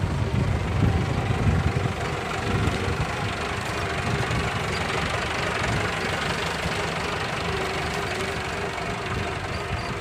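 Massey Ferguson 375 tractor's diesel engine running steadily under load as it pulls a tine cultivator through the soil.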